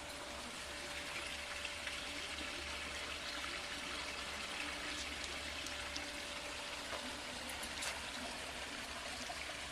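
Steady rushing background noise with a few faint clicks and a faint steady hum.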